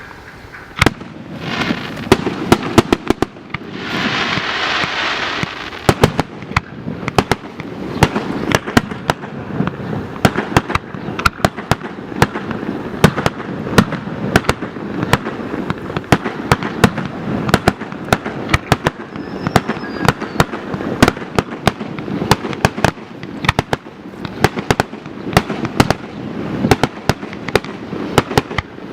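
Fireworks display: a rapid, continuous string of sharp bangs and pops, with a burst of hissing about four seconds in.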